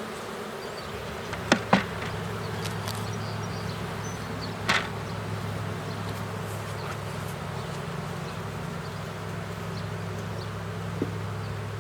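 Steady buzzing hum of a queenless honeybee colony flying around its opened hive. A few sharp knocks cut through it, two close together about a second and a half in and another near five seconds.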